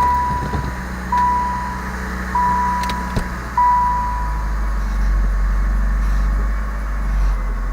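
A 1999 Saturn SL2's four-cylinder engine running at idle with a steady low hum, just after starting. Over it a dashboard warning chime beeps four times at one steady pitch, about a second apart, then stops a little past halfway. There are a couple of short clicks around the third beep.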